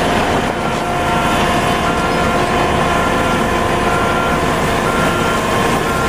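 HAMM H11i single-drum road roller running, its engine a steady drone, with a backup alarm beeping about once a second.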